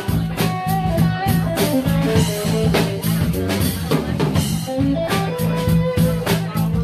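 Small jazz band playing live: electric guitar over electric bass and a drum kit, with steady drum strokes.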